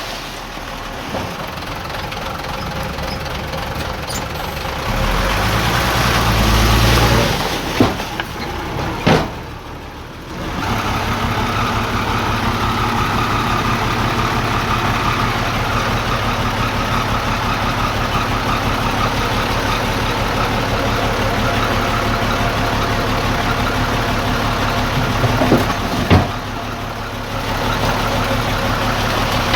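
Heavy diesel engine of earthmoving machinery running. It grows louder about five seconds in, drops off briefly around nine to ten seconds, then runs steadily, with a sharp knock or two.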